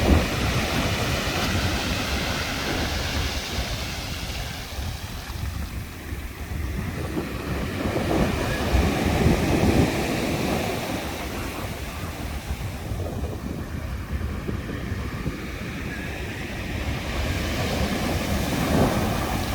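Sea waves breaking and washing on the shore, swelling louder and fading away again, with wind rumbling on the microphone.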